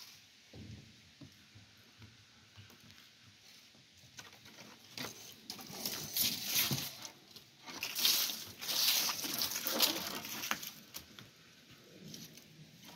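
Irregular rustling and scuffing with short crackles. It builds about four seconds in, stays loudest for several seconds, then dies away.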